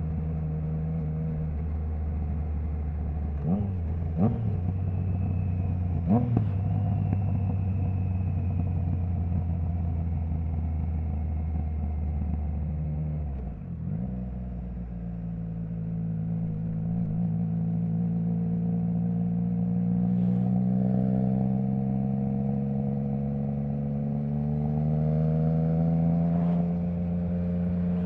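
Triumph Trident 660's three-cylinder engine running through a Zard stainless full exhaust with the baffle removed, ridden at light throttle. Three short sharp cracks come a few seconds in. About halfway through the engine note drops briefly, then the revs climb slowly and steadily for about twelve seconds before easing off near the end.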